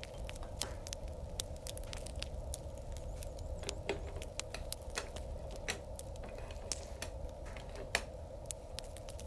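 Wood fire crackling in a stove: light, irregular clicks and pops over a steady low hum.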